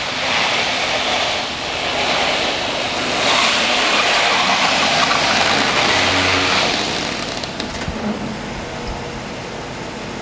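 1996 Chevrolet Impala SS with its LT1 5.7-litre V8 engine driving slowly past at close range. It grows louder as the car approaches, is loudest in the middle, then fades as it moves away.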